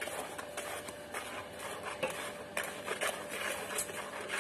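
A spatula stirring and scraping a thick masala paste around a kadhai, with scraping strokes about twice a second, mixing freshly added spice powders into the paste.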